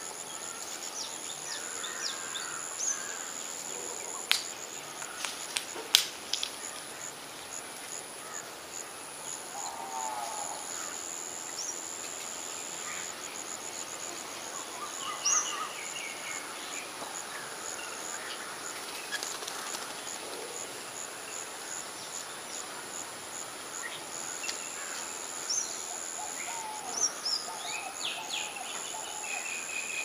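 Insects droning steadily at a high pitch, with scattered short bird chirps throughout and two sharp clicks about four and six seconds in.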